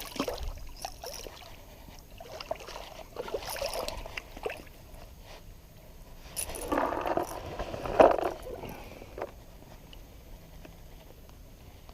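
Irregular splashing and sloshing of water with a few sharp knocks, heaviest about seven to eight seconds in, then dying down.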